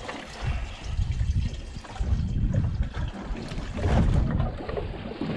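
Water lapping against the hull of a small boat at sea, with an uneven low rumble that swells and fades about once a second.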